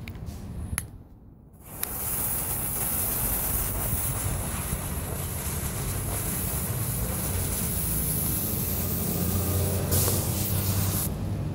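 A green visco fuse hissing steadily as it burns down, then a pile of black-powder-coated rice hulls (a firework burst charge) going off in a short whoosh of about a second, with no sharp bang.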